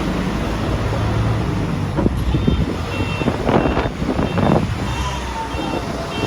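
Case backhoe loader with its diesel engine running, joined by repeated knocks and clanks from about two seconds in. Its reversing alarm beeps in short repeated tones from about three seconds in.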